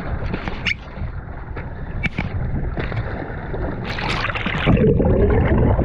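Wind and water noise on the microphone, then a splash about four seconds in as the action camera goes into the sea, followed by loud, muffled underwater rushing and bubbling.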